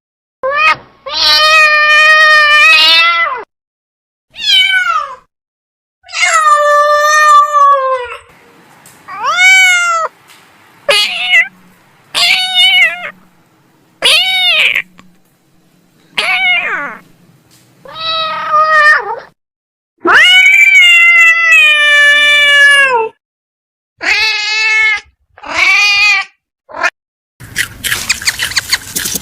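Domestic cats meowing: a series of about fourteen loud meows, some short and some long and drawn out, rising and falling in pitch. Near the end a noisy rustle takes over.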